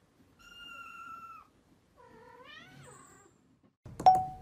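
Kittens mewing: a thin, slightly falling mew about half a second in, then a rising and falling mew about two seconds in. Near the end a loud struck note, like a piano or chime, rings once.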